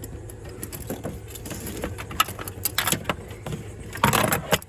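Scattered metallic clicks and taps of hand tools working a steel brake line loose, with a louder burst of rattling a little after four seconds in.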